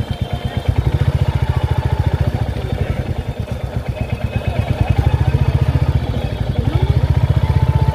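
Motorcycle engine running while riding along, with a fast, even pulsing beat.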